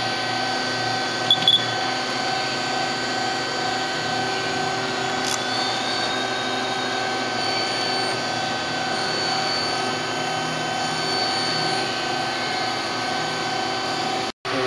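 Citizen L20 CNC Swiss-type lathe with its main spindle stopped and the headstock jogging along the Z axis: a steady machine whine made of several even tones. A short louder blip with a higher tone comes about a second and a half in, and a small click comes near five seconds.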